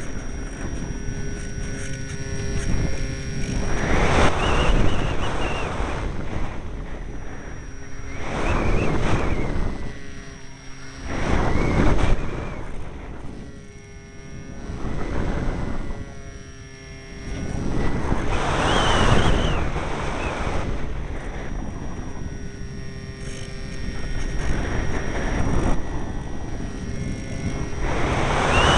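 Strong wind buffeting the microphone in repeated gusts, swelling and dying away every few seconds. A faint steady high whine shows through in the lulls.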